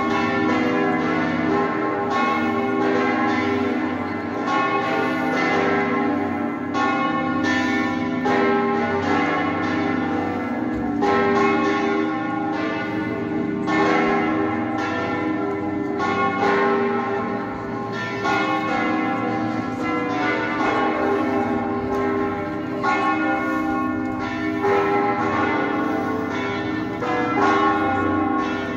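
Church bells ringing a continuous peal, strike after strike overlapping over sustained ringing tones.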